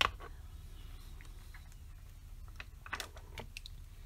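Felt-tip marker being capped and set down on a desk: a sharp click at the start, then scattered light clicks and taps, with a small cluster about three seconds in.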